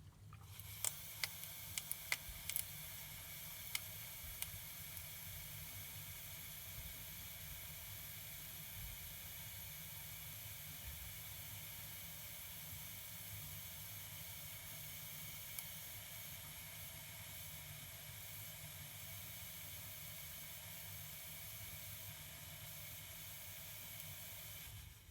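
Toilet refilling after a flush: a steady hiss of water running into the cistern, broken by several sharp cracking noises in the first few seconds and one more about halfway through. The hiss stops near the end.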